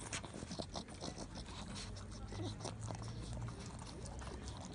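A dog licking and nosing a rubber Kong toy stuffed with peanut butter on wooden decking: irregular small wet clicks and snuffles.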